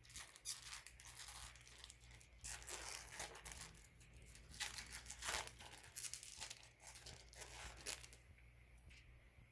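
Plastic wrapper of a 2018-19 Upper Deck SP hockey card pack being torn open and crinkled by hand: faint, irregular rips and rustles that die down near the end.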